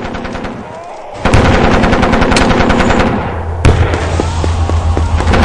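Battle sound effect of machine-gun fire in rapid bursts, dipping briefly about a second in and then coming back louder and denser. About two-thirds of the way through, a heavy boom lands, leaving a low rumble under the continuing gunfire.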